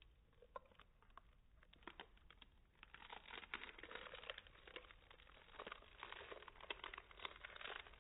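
Faint, slowed-down crackling and clicking of a toddler biting and chewing a crisp sheet of dried seaweed (nori), the clicks growing denser about three seconds in.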